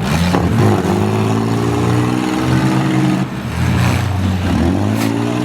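Engines of demolition-derby minivans, SUVs and small trucks running and revving, rising and falling in pitch, with a couple of sharp knocks.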